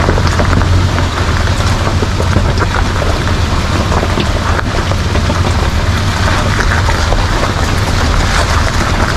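Toyota Land Cruiser 80 series' 4.5-litre straight-six engine running steadily off-road, with a dense patter of small hits over it.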